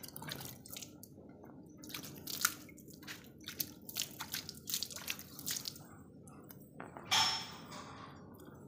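Milk squirting in short, irregular spurts from a cow's teats as it is milked by hand, the streams splashing onto the concrete floor and into a plastic mug. One louder, longer splash comes about seven seconds in.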